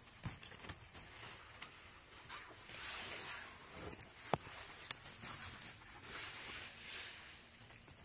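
Dry grass, twigs and forest-floor undergrowth rustling as a hand reaches in among fallen branches to pick a bolete mushroom, with two sharp snaps a little over four seconds in, about half a second apart.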